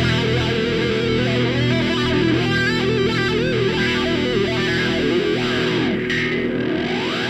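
Rock music with a distorted electric guitar playing a bending melodic lead over steady held notes, ending in a rising slide.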